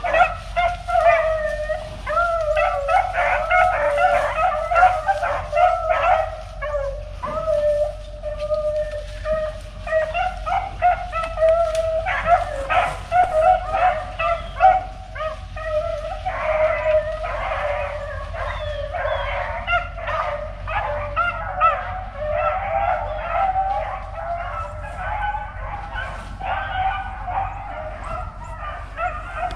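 A pack of rabbit-hunting beagles baying together, many overlapping voices, as hounds do when running a cottontail's scent trail. The cry thins out somewhat toward the end.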